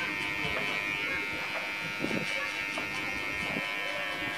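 Electric hair clippers running with a steady buzz as they cut short hair at the nape.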